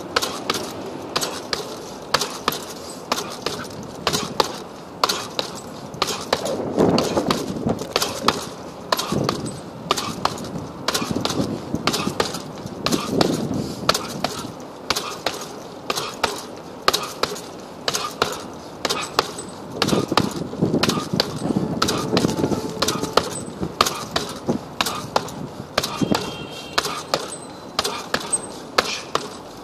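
Punches landing on a hanging heavy punching bag, a steady series of sharp thuds about two a second with quicker flurries.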